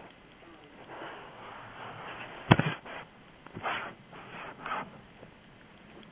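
A dog chewing and gnawing on a toy, which gives off irregular scraping, crunching noises with short bursts. A single sharp click about two and a half seconds in is the loudest sound.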